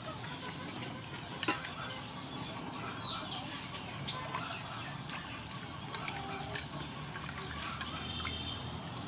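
Liquid in an aluminium pot being poured into and then stirred with a wooden spoon, with scattered small ticks and one sharp knock about a second and a half in.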